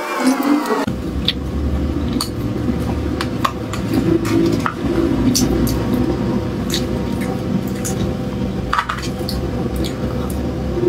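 Close-miked eating sounds: wet chewing and mouth noises with scattered clicks and taps of a metal spoon against a clear plastic dessert box, over a steady hum.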